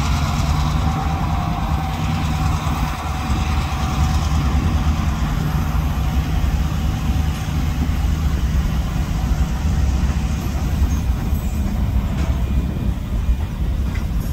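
Diesel freight locomotive's engine running with a steady low rumble.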